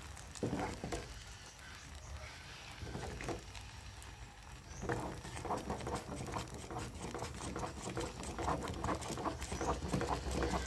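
Spoon stirring and scraping thick cooked flour paste in a pot: a few scattered clicks, then a quick run of clicks and scrapes from about five seconds in.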